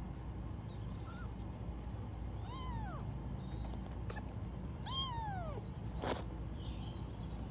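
Kittens meowing: two high mews a few seconds apart, each rising then falling in pitch, over a steady low background noise. A sharp click and a short noisy burst fall between and after them.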